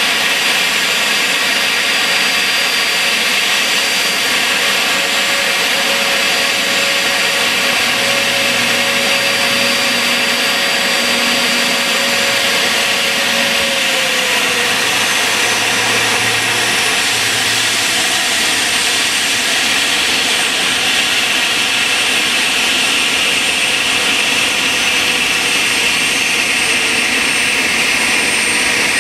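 Jet turbine running steadily: a high whine over a loud, even rush, with one lower tone dipping slightly in pitch about halfway through.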